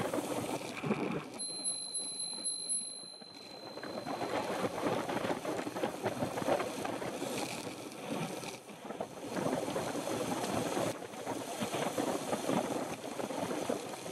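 Wind rushing over the microphone of a camera on a moving road bicycle, mixed with tyre and road noise. A thin high electronic tone sounds for about two seconds near the start.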